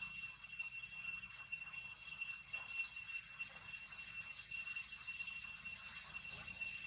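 Steady high-pitched drone of insects in the undergrowth: an unbroken whine of several even tones over a light hiss.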